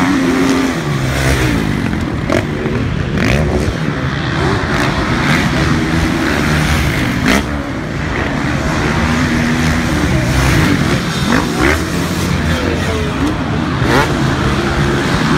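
Several motocross bikes' engines revving hard and easing off as riders accelerate and brake along the track, a dense overlapping mix of rising and falling engine notes.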